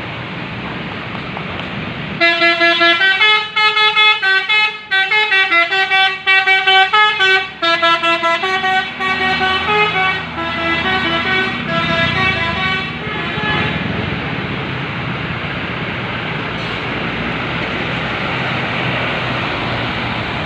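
A bus's multi-tone 'telolet' air horn playing a quick tune of short stepping notes. It starts about two seconds in and fades out about two-thirds of the way through. A steady rush of traffic noise runs underneath.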